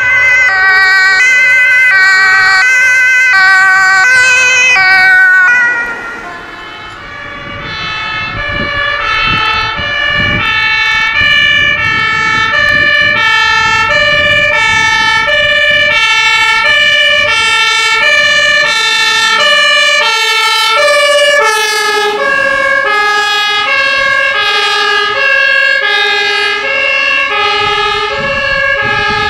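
Emergency-vehicle two-tone sirens: a loud siren for the first few seconds, then after a short dip an ambulance's two-tone siren alternating steadily between a high and a low note, growing louder as the ambulance approaches on an emergency run.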